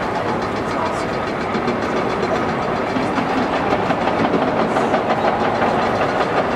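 Caterpillar 963C track loader's diesel engine running under load, with its steel tracks clattering as it drives across the excavation floor.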